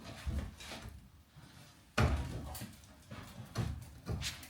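Several hollow knocks and bumps, the loudest about two seconds in, from handling the car body shell and its supports before it is tipped.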